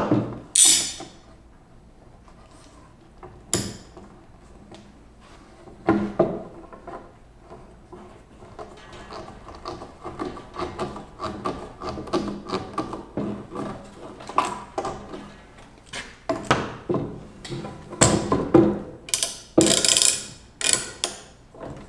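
Bar clamps being worked on a glued-up pine board panel: a few separate knocks, then a long run of rapid ratcheting clicks as a clamp is tightened, growing louder near the end.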